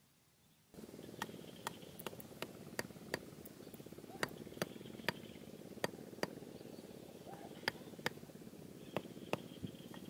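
Sharp taps of a hand tool striking small wooden stakes being driven into soil, irregular at about two a second, over a steady low noise that starts abruptly about a second in.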